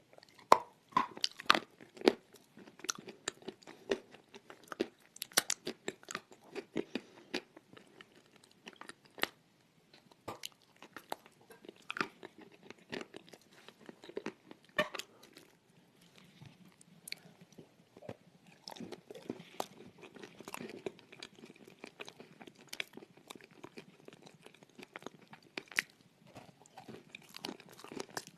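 Close-miked chewing with irregular crisp crunches and crackles, denser in the first half and sparser later.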